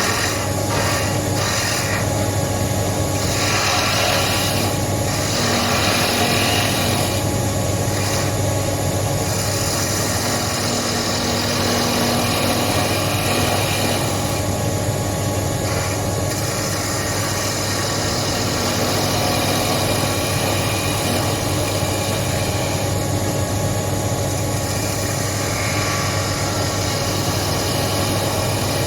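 Wood lathe running steadily with a low motor hum while a turning tool cuts a spinning wooden leg. The cutting noise comes and goes in several passes.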